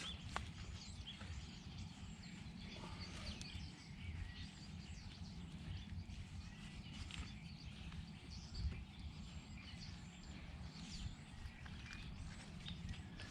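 Quiet outdoor ambience: small birds chirping here and there over a steady low rumble.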